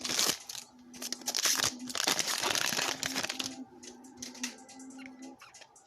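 Foil trading-card pack wrapper crinkling and tearing as it is opened and handled, in dense crackling bursts for the first three and a half seconds. After that come only a few faint clicks.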